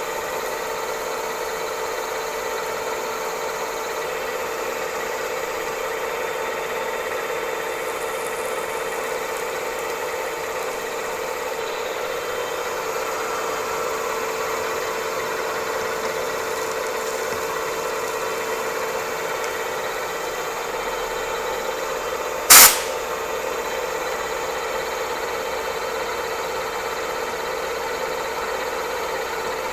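Bridgeport milling machine cutting a 7/8-inch keyway into a 1045 steel shaft with a 3-flute end mill at 325 RPM: a steady machine hum with a constant tone. One sharp crack about three-quarters of the way through.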